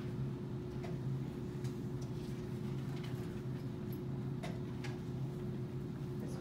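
Steady low room hum with a few faint, irregularly spaced clicks.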